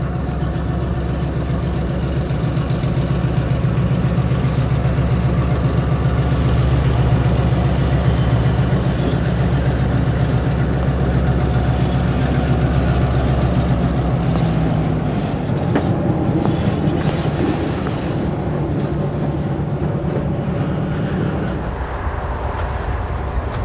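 EMD SW-7 switcher locomotive's diesel engine running steadily as the locomotive moves along the track, a loud low engine drone that shifts partway through.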